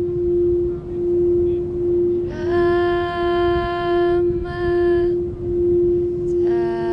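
Frosted quartz crystal singing bowl played by circling its rim with a mallet, giving one steady ringing tone that swells and dips about once a second. A second, higher held tone rich in overtones sounds over it twice, from about two seconds in and again near the end.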